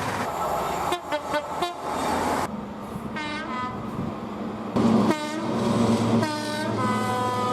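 Train horn sounding several blasts, the last one held longer near the end, over the steady low running noise of the train.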